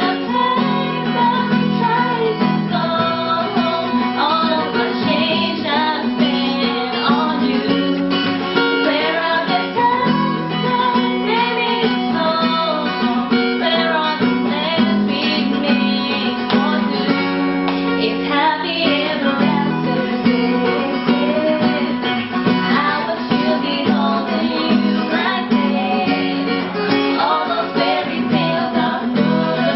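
An acoustic guitar strummed steadily under a singing voice, in a home cover of a pop song.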